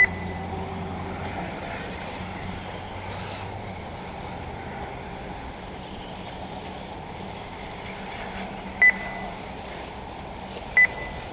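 Three short, high electronic beeps, one at the start and two near the end, typical of a race lap-timing system signalling cars crossing the line. They sound over a steady low background of outdoor noise.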